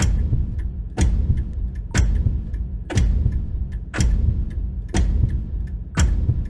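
Horror sound effect of a slow, heavy ticking: a sharp hit with a deep rumble once a second, seven times, with faint small ticks between the hits, like an ominous oversized clock.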